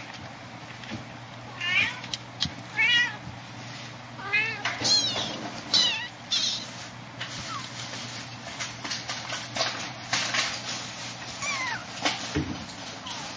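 Kittens mewing: a string of short, high-pitched mews in the first half and another near the end, with light scratching and clicking sounds in between.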